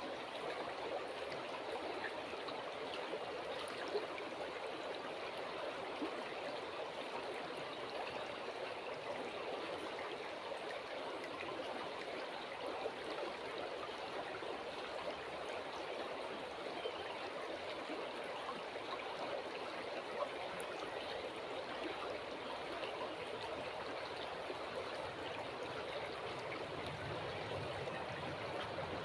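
River water flowing steadily, a continuous rushing and trickling, with a few faint brief ticks. A low rumble comes in near the end.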